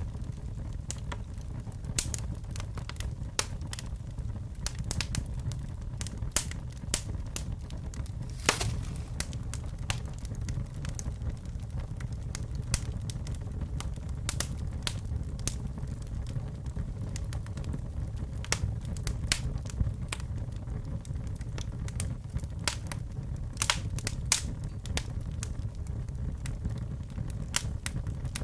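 Wood fire burning in a fireplace: a steady low rumble of flames with irregular sharp crackles and pops, one louder pop about a third of the way through.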